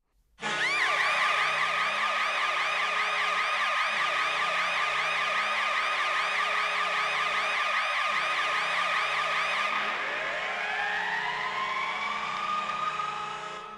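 NHL arena goal horn blasting steadily with police sirens layered over it: a fast siren sweeping up and down several times a second, then about ten seconds in a siren winding up in pitch. It starts suddenly about half a second in and cuts off at the end.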